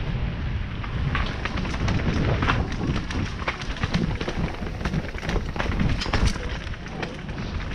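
Specialized Stumpjumper mountain bike descending fast over a rooty dirt trail: tyres rumbling over the ground, with frequent sharp clicks and rattles from the bike as it hits roots and bumps. Wind buffets the microphone throughout.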